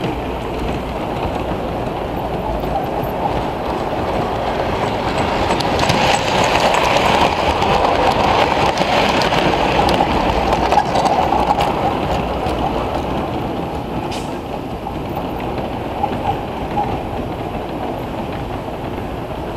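Model train running on track, its wheels rumbling and clicking over the rails. It grows louder as it passes close, about a third to halfway through, then fades.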